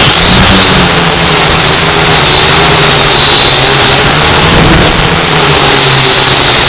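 Small camera drone's motors and propellers whining, picked up by its own onboard microphone: a loud steady buzz with a high whine that wavers up and down in pitch as the throttle changes.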